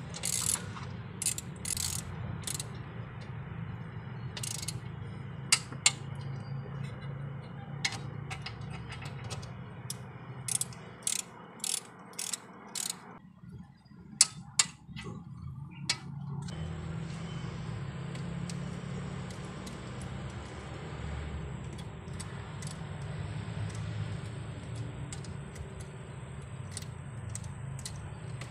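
Hand ratchet wrench clicking in short irregular runs, with sharp metal tool clinks, as bolts on an engine cylinder head are turned. A steady low hum runs underneath.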